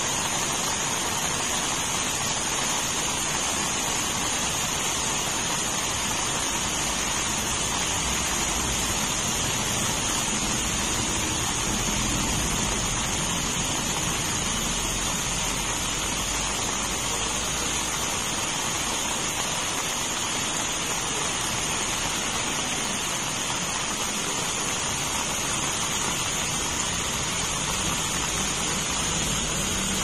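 Heavy rain falling steadily on a grassy lawn and garden, an even, unbroken hiss of many drops. A steady high-pitched tone sits above the rain.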